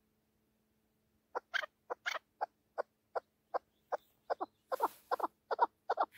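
Chukar partridge calling: a run of short clucking notes starting about a second in, coming faster and turning into doubled 'chuk-ar' notes toward the end.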